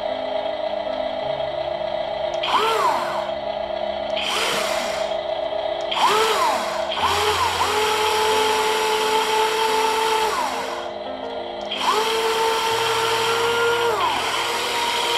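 Brushed electric motors and metal gearing of a 1:14 MODSTER Digger RC excavator whining in four bursts as the boom and arm move. The longest burst lasts about four seconds, and each one's pitch rises as the motor speeds up, holds, then falls as it stops.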